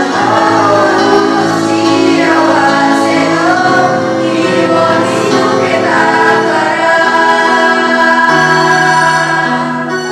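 Vocal group singing a melody in unison (one voice part), with sustained sung notes and pitch glides.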